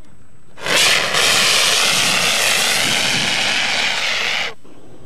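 Hand-held dry-powder fire extinguisher discharging: a loud, steady rushing hiss that starts suddenly about half a second in and stops abruptly near the end.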